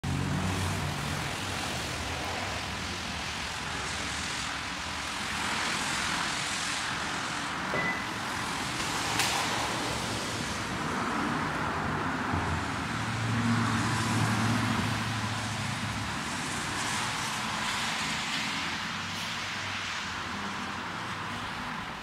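Traffic passing on wet roads: tyre hiss that swells and fades every few seconds over a steady wash of noise.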